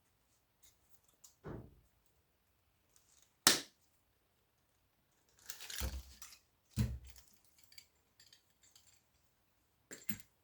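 Cutters snipping wires and fittings off scrap microwave parts: a handful of separate sharp snips with light metal clatter between them, the sharpest about three and a half seconds in.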